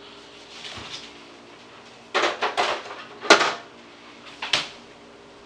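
A refrigerator being opened and food put back and taken out: a few quick clicks and knocks about two seconds in, a sharp louder knock a second later, and one more click near the end.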